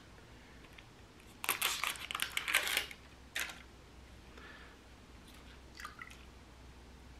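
Thin plastic Tropica plant cup crinkling and crackling in the hands as it is picked up and handled, a dense burst of crackles followed by a single click and a few lighter ticks.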